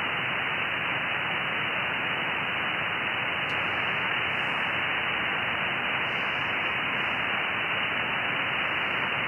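Icom IC-7610 receiver hiss on the 17 m band in upper sideband: steady band noise cut off above about 3 kHz by the receive filter, with no station heard answering a check of whether the frequency is in use.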